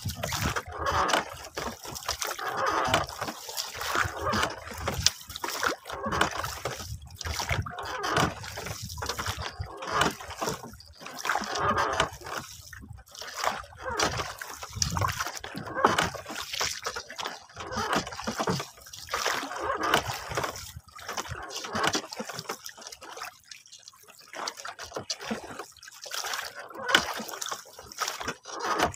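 Sea water sloshing and splashing against the hull of a small wooden boat, in irregular surges every second or two.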